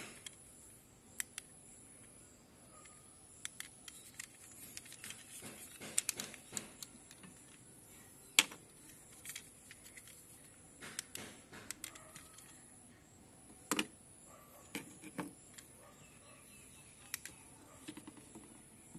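Hands handling a plastic pen-type brake fluid tester and the brake fluid reservoir cap: scattered light clicks and taps at irregular intervals, the sharpest about eight seconds in, over a faint steady high hiss.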